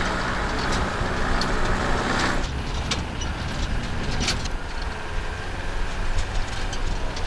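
Old light truck driving on a rough dirt track, its engine and road noise running steadily. About two and a half seconds in the sound changes to a low rumble heard from the open back, with scattered sharp clicks and rattles.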